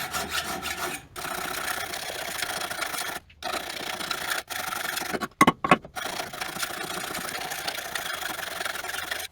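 Caterpillar D4 water-pump pipe being scrubbed by hand to clean it to bare metal for brazing: steady abrasive rasping, with short breaks a few times and a couple of sharp knocks about five and a half seconds in.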